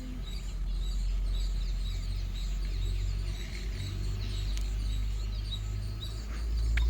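Outdoor ambience: a steady low rumble with faint bird chirps and a few small ticks.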